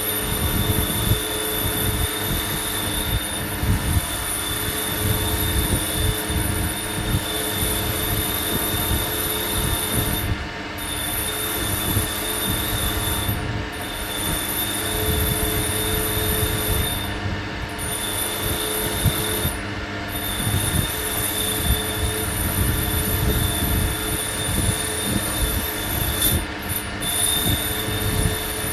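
Bench wire wheel driven by a 1 hp Leland electric motor, its steel bristles scrubbing rust off a metal torch fitting held against it: a steady high-pitched whine over a rough low grinding, the whine dropping out briefly several times as the contact eases off.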